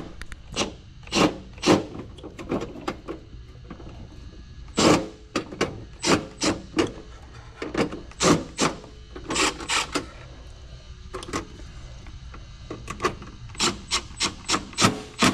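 Irregular series of short scraping strokes, some in quick runs of three or four, as something is rubbed or scraped by hand, over a faint steady hum.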